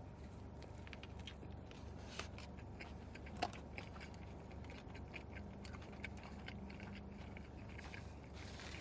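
A person chewing fast food with the mouth close to the microphone: faint irregular wet clicks and smacks, two sharper clicks about two and three and a half seconds in.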